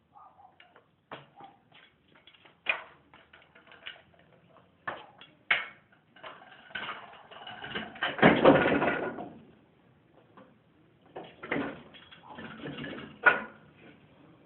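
A kick scooter clattering on a concrete patio: scattered sharp knocks as it is handled and set down, with a longer rushing scrape of about two seconds a little past the middle.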